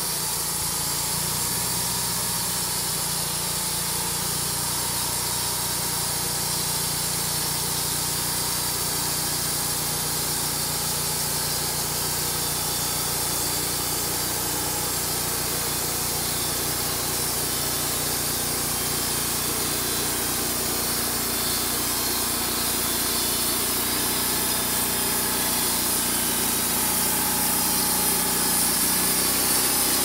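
Wood-Mizer LT35HD bandsaw mill sawing a pine cant: its engine running steadily under load while the band blade cuts, with a constant high hiss from the cut. It grows slightly louder near the end.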